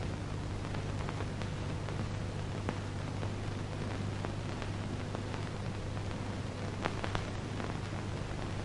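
Steady hiss and low hum from an old film soundtrack, with scattered faint clicks.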